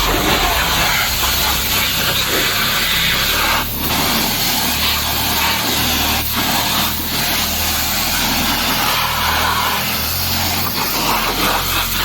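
Pressure washer spraying water, a loud steady hiss with a low hum of the machine beneath it; the spray dips briefly a few times.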